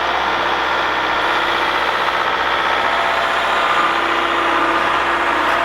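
Skid steer loader's diesel engine running steadily, with a constant drone.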